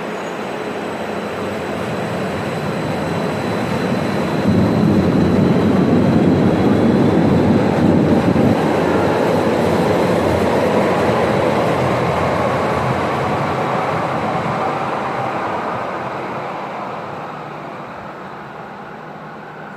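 Stuttgart Stadtbahn light-rail train going by: the rolling rumble builds, is loudest a few seconds in, then slowly fades, with a faint gliding whine as it draws away.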